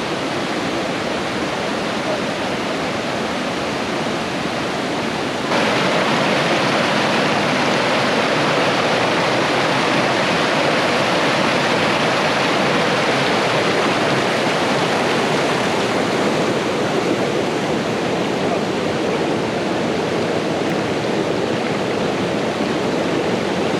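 Waterfall, a steady rush of falling water. About five seconds in it becomes suddenly louder.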